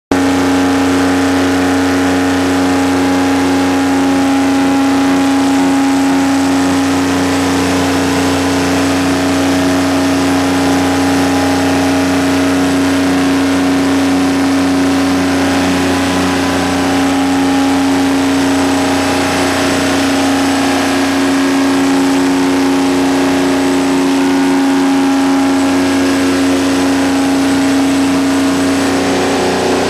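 Detroit Diesel-powered 500 kW diesel generator set running at a steady constant speed, a loud even drone with a strong steady hum.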